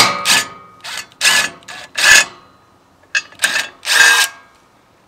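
DeWalt cordless impact driver with a 17 mm socket backing out a stock tow-hook bolt on a truck frame, run in about eight short bursts over four seconds.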